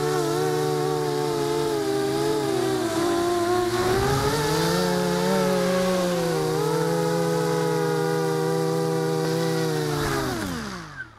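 The four ZMR 1804 2400KV brushless motors and propellers of a 250-size FPV racing quadcopter buzzing in flight, the pitch wavering up and down with the throttle. Near the end the pitch falls steadily and the sound dies away as the motors spool down.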